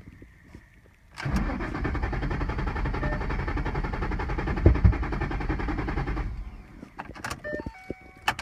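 Starter cranking the 2011 Mustang GT's 5.0 V8 for about five seconds without the engine catching; the car won't start. It stops abruptly, followed by a few clicks near the end.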